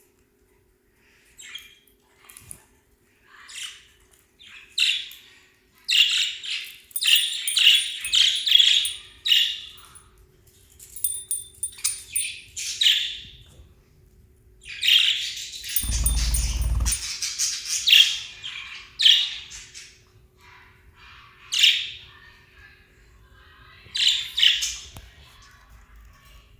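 Small pet parrots, lovebirds and budgerigars, chirping and squawking in repeated flurries of short, high, scratchy calls. A brief low rumble sounds about two-thirds of the way through.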